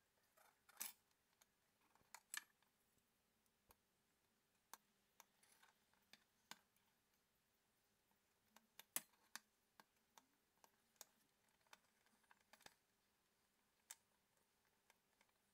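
Faint, scattered clicks and light scrapes from a thin scraper spreading modelling clay over a plastic battery box and tapping against its case, irregular and quiet, the loudest about nine seconds in.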